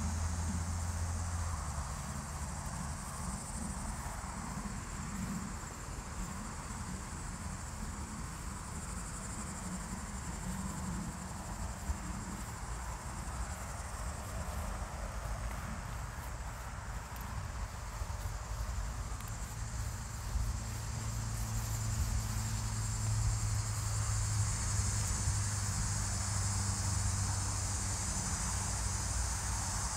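Insects chirring in a steady, high continuous trill that grows louder in the last third, over a low steady rumble.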